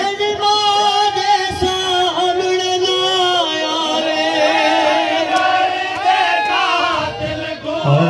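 Male noha reciter singing a mournful line through a microphone, holding long notes, with a group of men's voices singing along with him in the second half.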